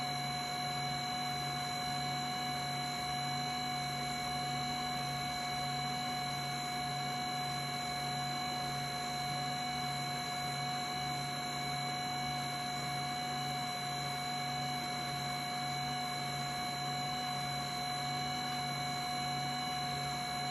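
HumminGuru ultrasonic vinyl record cleaner running its drying cycle, with the record slowly turning: a steady whine made of several high tones over a low hum that pulses evenly.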